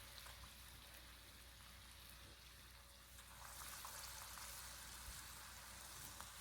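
Batter-coated chicken pieces frying in hot oil in a wok: a quiet, steady sizzle with faint crackles that grows louder about halfway through.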